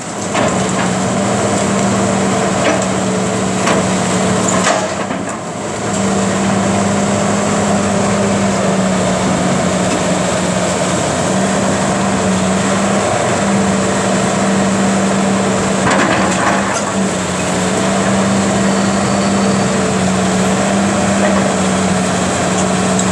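CAT 330B hydraulic excavator's diesel engine running steadily under load with a held hum, as its demolition grapple tears at a brick and block wall. A few short crunches and knocks of breaking masonry and falling debris come through, near the start and again about two-thirds of the way in.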